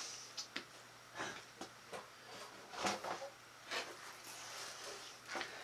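Light handling noises: scattered soft knocks, clicks and rustles as objects are moved and set down.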